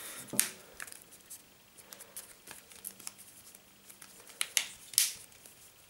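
Plastic back cover of a Samsung Galaxy S5 being pressed around its edges and snapped onto the phone: scattered small clicks, the loudest two near the end.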